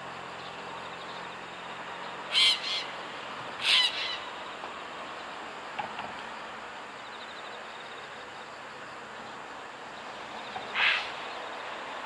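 Common kingfisher giving short, shrill, high-pitched calls: two about a second apart a couple of seconds in, and one more near the end, over a steady background hiss.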